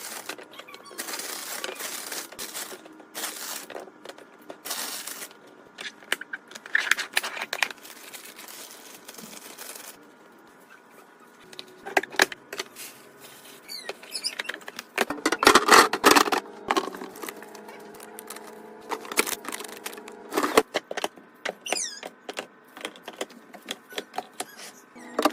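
Irregular clinks, clatter and rustling of containers and packaging being handled and set down while a fridge is restocked, in bursts with short lulls between.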